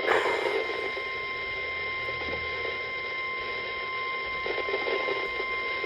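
NOAA Weather Radio warning alarm tone: a steady single tone of about 1050 Hz over radio hiss, the signal that a warning message is about to be read.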